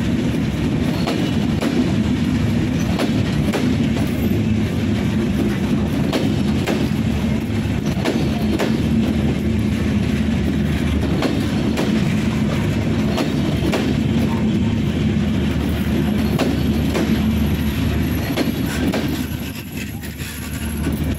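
Bangladesh Railway Intercity passenger coaches rolling past close by: a steady, loud rumble of steel wheels on the rails, with a sharp clack about once a second as the wheels pass over the rail joints. The rumble eases off briefly near the end.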